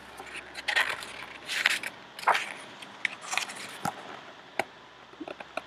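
Pages of a picture book being handled and turned, irregular paper rustles with small sharp clicks and crinkles as pages that stick together are pried apart.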